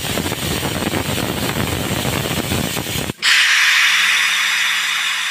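Compressed air hissing out of a goods wagon's air brake as the distributor valve's release handle is pulled, venting the brake. About three seconds in the loud hiss cuts off abruptly and a thinner, higher hiss carries on.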